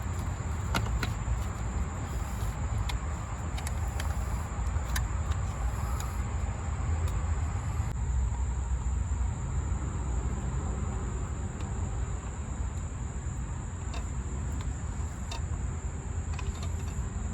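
A steady low rumble with a constant high insect trill, like crickets, running over it, and a few scattered light clicks.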